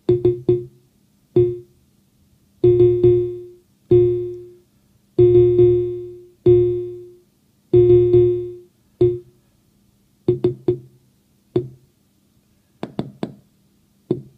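Mutable Instruments Braids synthesizer voice playing rhythmically triggered notes. Its internal envelope's attack and decay are under voltage control, so the notes stretch from short blips into longer swelling, fading tones a couple of seconds in, then shrink back to short blips as the voltage is turned down.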